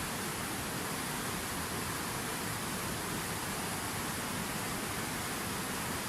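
A fountain waterfall with water pouring down steadily, an even, unbroken hiss of falling water.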